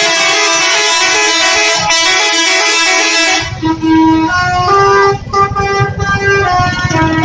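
Indonesian bus 'telolet' musical horn playing a rapid tune of stepping notes. About three and a half seconds in, a low rumble comes in underneath while the tune carries on.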